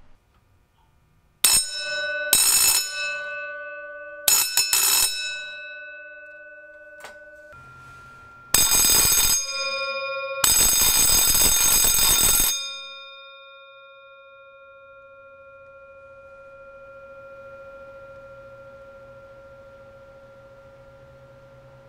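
Restored circa-1907 Faraday electric fire bell ringing in short bursts, its clapper rapidly hammering the polished gong: a few brief rings, then a longer ring of about two seconds. After the last ring the gong keeps sounding a clear, lingering tone.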